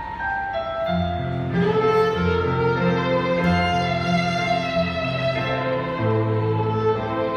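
Saxophone playing a slow, sustained melody over electronic keyboard accompaniment, with held bass notes coming in about a second in.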